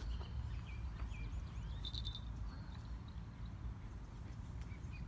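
A small bite bell on a fishing-rod tip jingles briefly about two seconds in, over scattered bird chirps and a steady low rumble.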